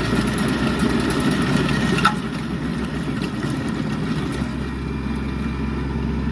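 Kubota B2650 compact tractor's three-cylinder diesel running a PTO-driven Woods stump grinder that is grinding a stump, a steady engine and cutter-wheel drone, with one sharp knock about two seconds in.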